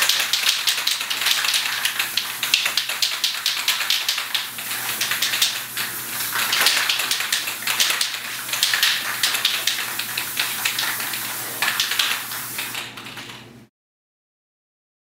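Aerosol spray-paint can hissing in many short, rapid bursts, then stopping abruptly near the end.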